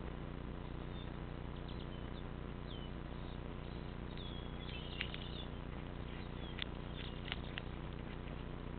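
Frog's short, high-pitched squeaking distress cries while a cat bites and eats it alive, bunched about halfway through, with a few sharp clicks.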